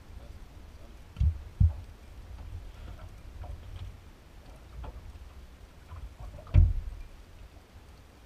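Small aluminium fishing boat drifting at sea: a steady low rumble, with three dull knocks in the boat, two close together about a second in and a louder one later.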